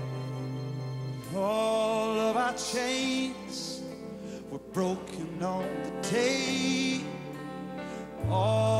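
Live worship band music: held chords with a singing voice carrying a few short, gliding phrases over them.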